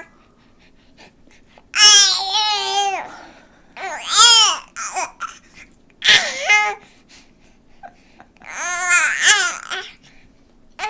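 A baby babbling in four high-pitched vocal bursts, each a second or so long, the pitch wavering up and down.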